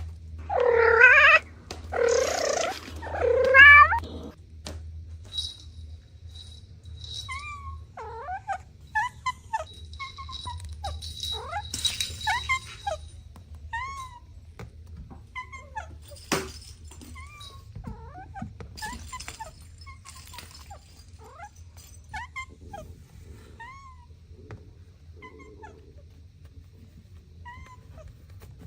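Cats meowing: three loud, drawn-out meows in the first four seconds, then many short, high mews scattered through the rest, with a single sharp click about midway.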